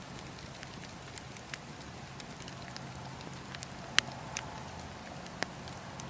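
Bonfire crackling: irregular sharp pops and snaps over a steady hiss, the loudest pop about four seconds in.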